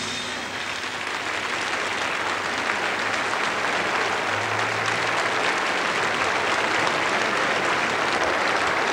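Concert audience applauding, the clapping building slightly and then holding steady.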